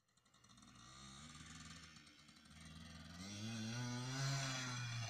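Hercules XE9 small two-stroke motorcycle riding toward the microphone across grass, its engine note rising in pitch and growing louder as it accelerates, then easing off slightly near the end.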